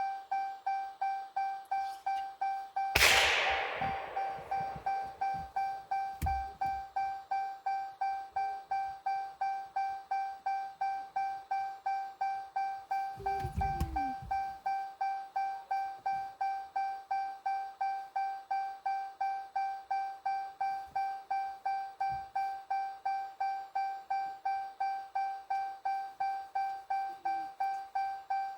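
A car's door-open warning chime dinging steadily, about twice a second. About three seconds in, a single loud gunshot whose echo fades over about a second, and a low thump near the middle.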